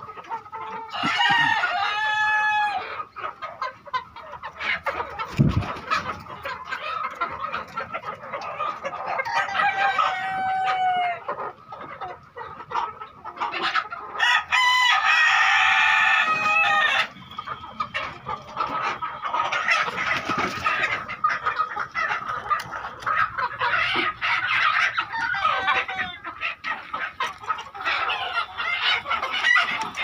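A flock of Sonali and desi chickens in a shed: roosters crow several times, the loudest about halfway through, over continuous clucking from the hens.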